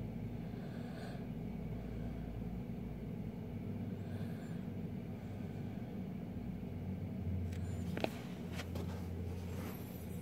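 Steady low background rumble, with a few sharp clicks about eight seconds in.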